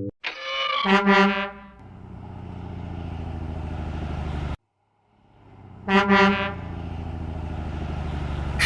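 Truck horn sound effect honking twice, each honk followed by a few seconds of an engine running with an even low rumble. The first honk comes about a second in, and its engine sound cuts off suddenly; the second honk and engine sound come about six seconds in.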